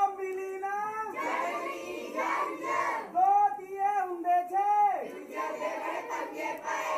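A group of children singing together in unison, in held, sing-song phrases of about a second each.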